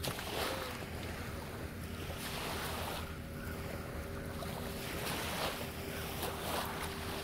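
Small waves washing in at the shoreline, swelling and fading every second or so, with wind on the microphone and a faint steady hum underneath.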